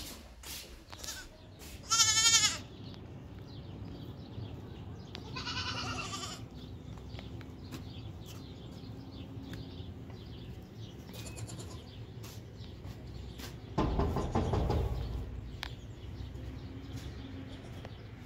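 A goat bleating: one loud, quavering bleat about two seconds in and a fainter one around six seconds. A low rush of noise comes about fourteen seconds in.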